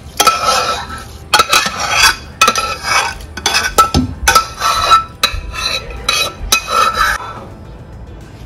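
Rice being rinsed by hand in a pot: repeated stirring and swishing with clinks and knocks against the pot, stopping about seven seconds in.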